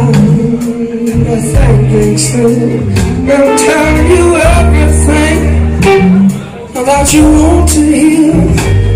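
A rock band playing live at full volume: electric guitar over bass and drums, heard from within the audience. About two-thirds of the way in the sound drops away for about half a second, then comes back in full.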